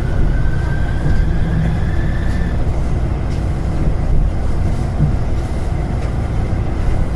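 Utsunomiya Light Rail tram heard from inside the car: a steady low rumble of running gear, with a faint high whine rising slightly in pitch over the first couple of seconds.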